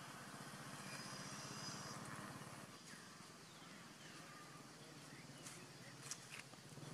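Quiet outdoor ambience with a faint, steady low hum like a distant motor engine, and a couple of small ticks near the end.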